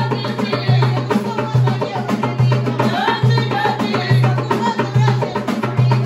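Traditional Moroccan troupe music: a large double-headed barrel drum beats a steady low pulse a little faster than once a second, under fast clicking percussion and a melody line that swoops upward again and again.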